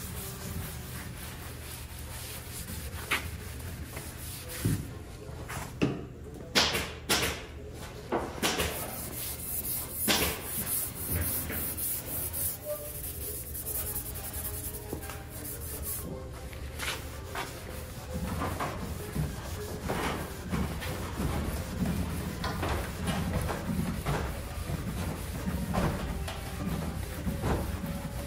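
A rag rubbing across a wooden buffet top in repeated strokes, wiping on gel stain thinned with mineral spirits, over a steady low hum. The strokes come scattered and sharp at first, then quicker and steadier through the second half.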